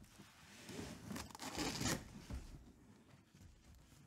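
Packaging on a sealed Tristar mini-helmet box being torn open. The ripping noise builds from about half a second in and is loudest near two seconds, then drops to quieter rustling as the box is handled.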